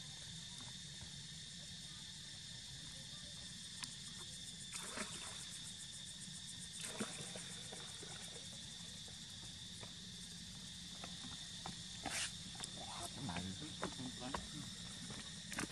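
Steady high-pitched insect drone with a few brief clicks and rustles scattered through it, several close together near the end.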